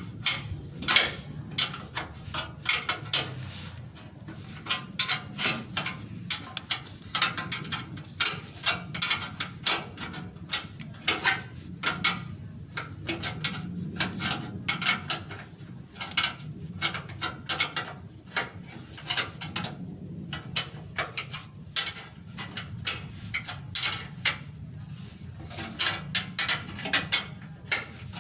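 Ratchet wrench clicking in quick runs of strokes, with short pauses between runs, as bolts are tightened back up.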